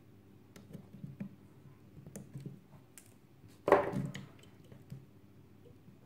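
Flush cutters and fingers working on a small circuit board in helping-hands clips: scattered light clicks and taps, with one much louder click about four seconds in.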